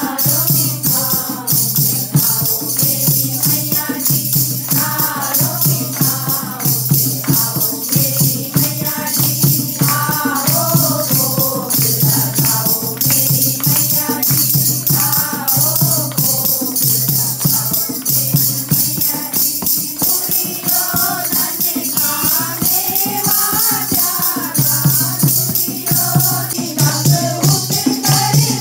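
Kirtan: group devotional singing with a steady rhythmic accompaniment of jingling, shaker-like percussion and a drum beat.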